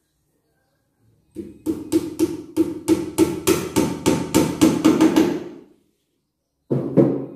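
Hammer blows on a wooden frame board mounted on a wall, likely driving a nail: a quick run of about seventeen strikes at about four a second, then two or three more near the end.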